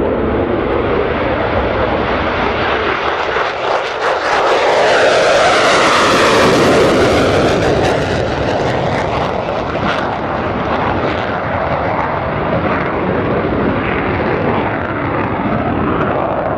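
F-16 Fighting Falcon jet engine noise during takeoff and climb-out. A loud, steady jet sound with a sweeping, phasing whoosh swells to its loudest about six seconds in as the jet passes, then eases off a little as it climbs away.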